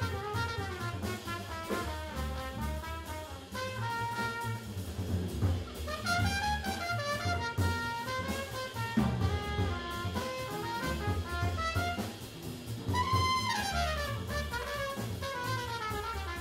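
Jazz quintet playing live: saxophone, trumpet and trombone carry melodic lines over bass and drum kit, with a falling run about two-thirds of the way in.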